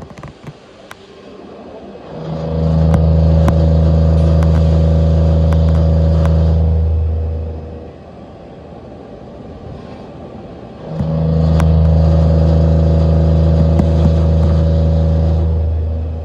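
Takamaz XT-8MY CNC lathe running: a steady, low machine hum with a fixed pitch comes up about two seconds in, holds for about five seconds and dies away, then comes up again a few seconds later and runs to near the end. Scattered light clicks are heard in between.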